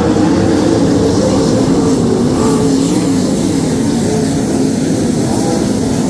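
Pack of winged sprint cars racing on a dirt oval, their V8 engines running hard at high revs, several pitches wavering and overlapping.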